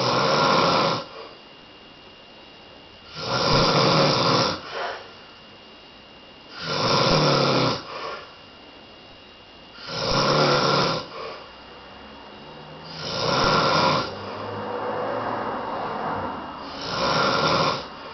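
A sleeping man snoring loudly and regularly: six snores, each about a second long and about three and a half seconds apart, each trailed by a short, softer breath.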